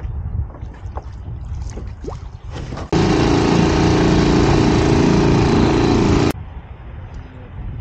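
Small outboard motor on a dinghy running steadily under way, loud, cutting in abruptly about three seconds in and stopping abruptly about three and a half seconds later. Before and after it, wind noise with faint knocks.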